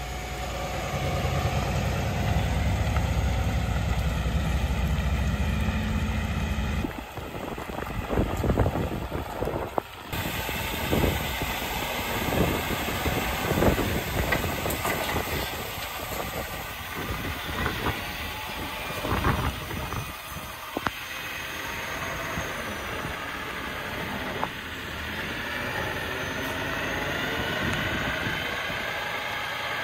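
Heavy diesel truck running as it drives past with tyres hissing on wet pavement, a steady low rumble. After a cut, scattered clanks and knocks and steady mechanical noise as the truck's hydraulic hook-lift tilts its bed back with the excavator on it.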